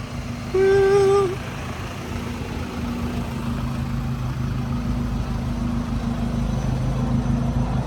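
A vehicle horn beeps once for under a second, over a vehicle engine idling steadily.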